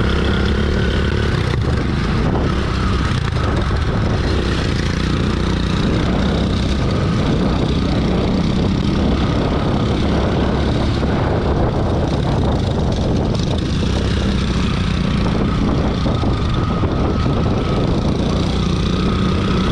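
Motorcycle engine running evenly as the bike is ridden at a steady pace.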